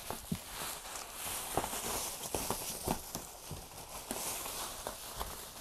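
Scattered light knocks, taps and rustles of a large cardboard box being handled and lifted, a dozen or so irregular knocks with no steady rhythm.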